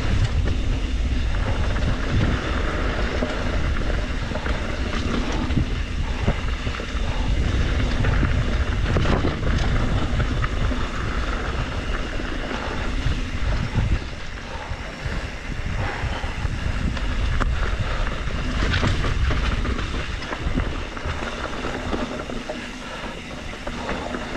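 Wind buffeting a GoPro Hero 9 microphone while riding a 2021 Trek Slash 7 mountain bike downhill, with the tyres rolling over dirt and rock and the bike rattling over bumps. A few sharper knocks from hits stand out along the way.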